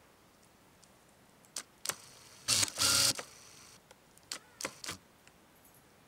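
Body-driven (screw-drive) autofocus of a Nikkor AF-D 80-400mm VR lens on a Nikon D4, whirring in short bursts as it drives focus. There are two brief buzzes, then a longer, louder whirr about two and a half seconds in, and three more short ones near the five-second mark. The motor sits right against the camera's built-in microphone, so it sounds noisy.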